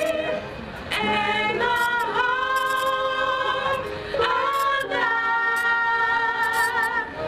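Choir singing long held notes with a slight vibrato, pausing briefly between phrases.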